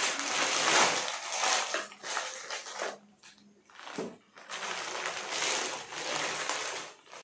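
Plastic courier mailer bag crinkling and rustling as it is cut open with scissors and handled, with a short pause and a light knock about four seconds in, then more rustling as a plastic tub is pulled out of the bag.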